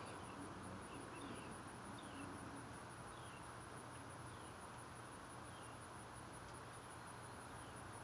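Faint, steady, high-pitched pulsing insect trill, with short falling chirps about once a second beneath it.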